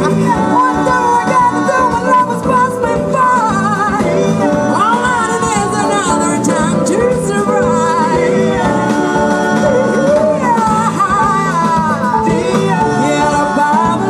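Live band playing a jazz-pop dance song, a singer's voice over electric guitars, keyboard and drums.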